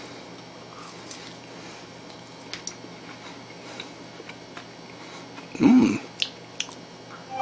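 A person quietly chewing a Caramel Coconut Oreo, with a few faint wet mouth clicks. About six seconds in comes a short hummed 'mmm' of enjoyment.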